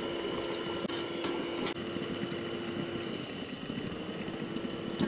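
Induction cooktop humming steadily under a wok of boiling water, the hum dropping slightly about three seconds in; a brief high beep sounds at about the same moment.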